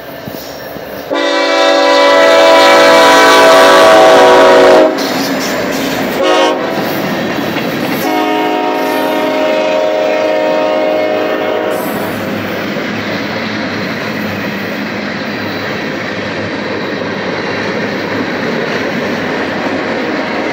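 Norfolk Southern freight locomotive's air horn blowing a long blast about a second in, a brief short toot, then another long blast as the lead locomotive comes up. After that, the steady noise and clatter of freight cars' wheels on the rails as the train rolls past close by.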